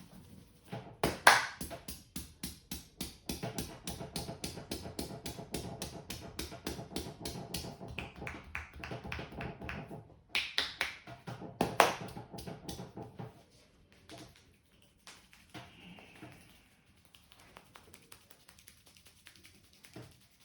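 Rapid rhythmic slapping and tapping of a barber's hands on a customer's head during a head massage, about five strikes a second, with two much louder sharp strikes among them. The tapping breaks off briefly about halfway, resumes, then stops, leaving only a few faint taps.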